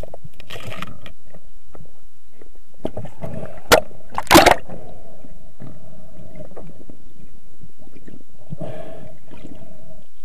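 Underwater sound heard through a camera housing: a muffled wash of water with scattered clicks and crackles, and two loud sharp bursts about four seconds in, less than a second apart.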